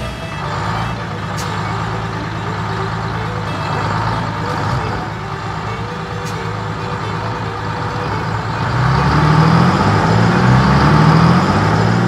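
A motor running steadily, then revving up in pitch several times from about nine seconds in.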